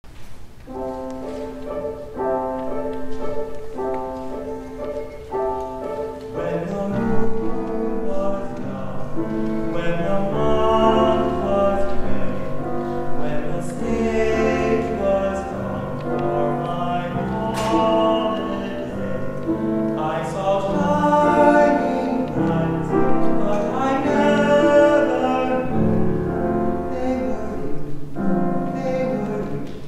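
Grand piano playing an introduction of repeated chords for about six seconds, then classical, operatic-style singing with piano accompaniment.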